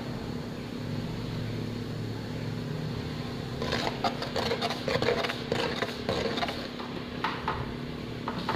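A metal ladle stirring liquid in an aluminium pot, clicking and scraping against the pot in quick strokes from a few seconds in, with a few more taps near the end. A steady low hum runs underneath.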